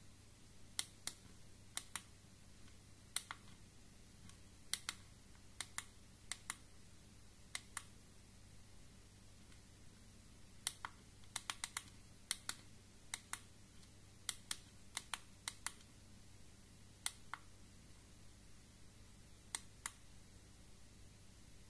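Small push-buttons on the side of a GK-mini++ Geiger counter being pressed to step through its menus. Each press gives a sharp click, mostly in quick pairs, about one press a second with a few short pauses.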